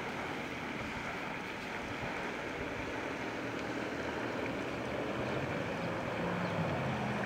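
Steady wind buffeting the microphone, with water rippling; no distinct motor tone stands out.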